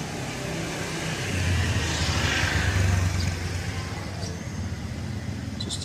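A motor vehicle passing close by on the street: its engine rumble and tyre noise build from about a second in, peak around two to three seconds, then fade, over a steady background hum of traffic.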